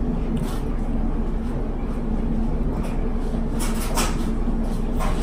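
Sips of a drink through a plastic straw, with a few faint slurps a little past the middle, over a steady low rumble in the room.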